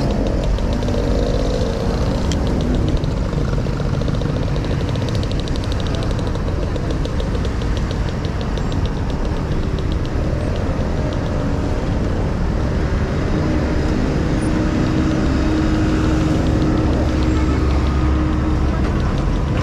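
Steady street traffic heard from a moving rider: motor scooters and cars running close by over a low rumble of engine and road noise, with a steadier engine tone joining in around the middle.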